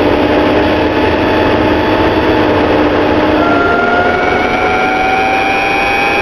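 A VW Touareg on the move: steady running and road noise under a thin whine that rises slowly in pitch, with a higher whine joining about halfway through. This is the unwanted noise the owner is trying to trace, which he suspects comes from the transfer case.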